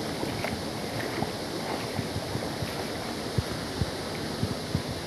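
Shallow stream running over rocks, with footsteps wading through the water and a few short, soft thumps.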